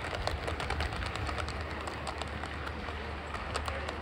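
Model train running on the layout's track: a steady low hum with many small irregular clicks and rattles.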